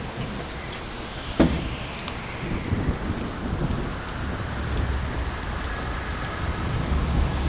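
A single sharp click about a second and a half in, then a steady rushing noise like rain with a low rumble, slowly swelling.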